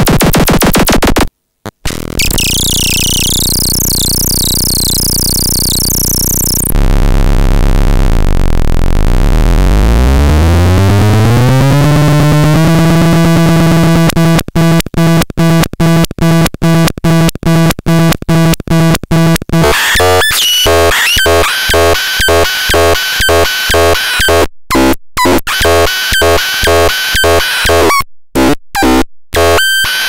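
Pharatron, a handmade patchable noise synthesizer, making harsh electronic sound: a dense buzzing drone that cuts out briefly, a stretch of hiss, then a tone that glides up and holds. The tone is then chopped into a fast on-off pulse of about two or three a second, and turns into a stuttering rhythmic pattern with high bleeps and sudden dropouts.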